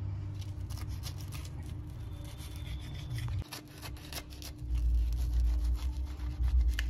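A kitchen knife sawing through crisp, butter-toasted sandwich bread: a run of crunchy, rasping strokes and crackles. A low rumble comes in about two-thirds of the way through.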